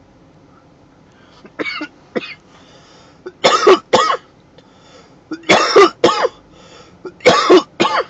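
A man coughing hard in four fits of paired coughs, the first fit quieter and the rest loud. It is the cough from vapor of a freshly taken dab of cannabis shatter burning in the throat.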